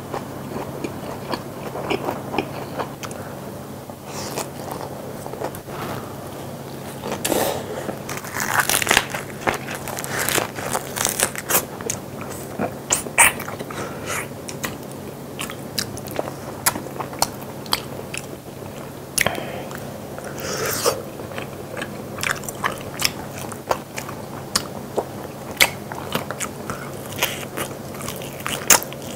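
Close-miked eating: a person gnawing and chewing braised pork trotter (jokbal) meat off the bone, with many irregular sharp clicks and smacks of biting and mouth sounds, a few of them louder.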